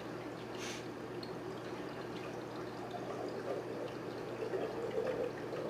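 Water from a hose pouring into an aquarium as it is refilled after cleaning: a steady splashing trickle.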